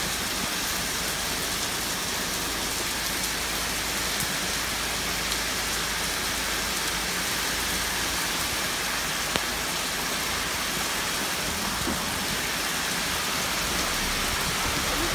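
Steady heavy rain falling on a paved street and garden foliage, an even hiss, with one brief tap about nine seconds in.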